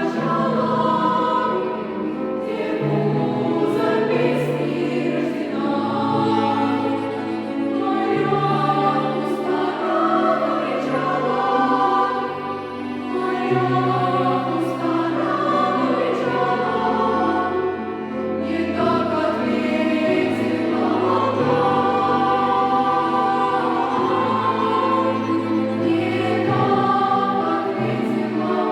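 Children's choir singing in parts, accompanied by piano and cello, with the cello holding long low notes beneath the voices.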